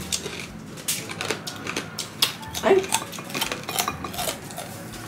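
Crispy pork chicharon being bitten and chewed close to the microphone: an irregular run of sharp crunches and crackles.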